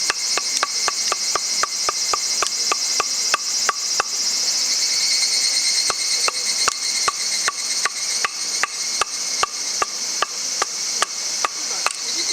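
Rapid, even hammer blows on metal, about three or four a second, each with a short ringing tone; they pause for about two seconds near the middle, then go on a little slower. A steady high chorus of insects runs behind.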